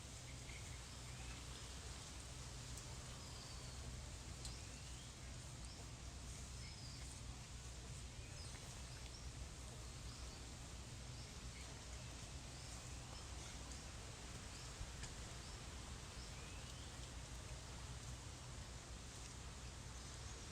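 Faint steady background hiss and low hum, with short bird chirps scattered throughout.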